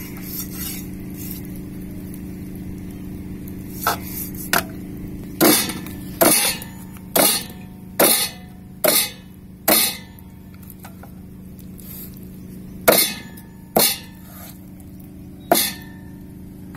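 Large kitchen knife chopping through a raw beef leg onto a wooden chopping board. About eight sharp chops come nearly a second apart, starting a few seconds in, and after a pause three more follow.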